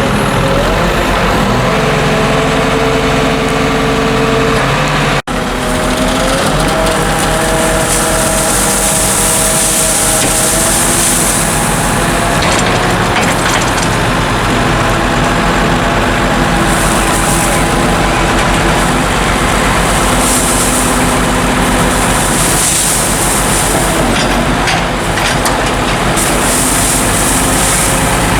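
Tractor engine running steadily under load as the trailer body is raised to tip a load of maize silage, with short hissing sounds every few seconds. The sound cuts out for an instant about five seconds in, and the engine note shifts after it.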